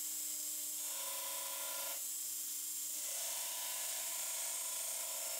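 Belt grinder's abrasive belt grinding down the end of a forged damascus steel bar, reducing its diameter: a steady grinding hiss whose tone shifts a few times in the first three seconds.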